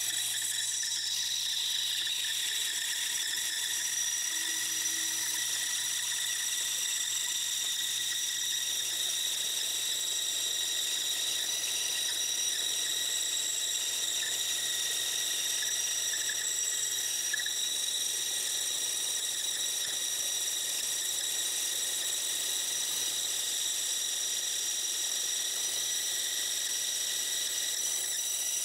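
Bandsaw running and cutting through a thick glued-up block of maple and poplar, heard at four times speed as a steady high-pitched whine over a low hum.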